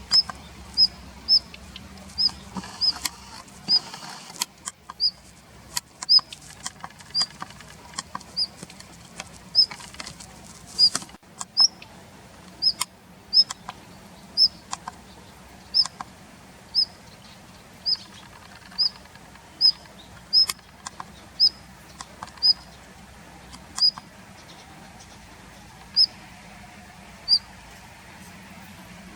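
Daurian redstart calling: a short, thin rising whistle repeated about once a second, with a few faint clicks between.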